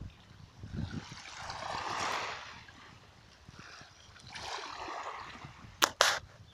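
Small sea waves lapping and gurgling, each wash swelling and fading over a second or two. Near the end come two sharp clicks close together, the loudest sounds.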